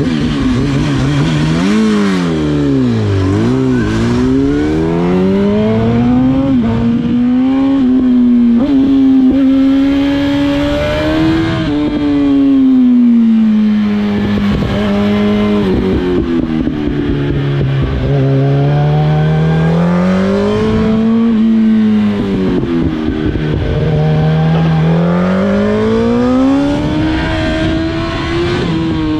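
2007 Yamaha R1 (RN19) inline-four sportbike engine under hard acceleration on a mountain road. The revs climb and fall again and again as it pulls out of bends and eases off, with a quick deep drop about three seconds in.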